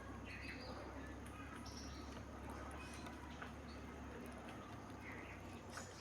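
Faint, scattered short high chirps and squeaks of small animals, over a steady low hum.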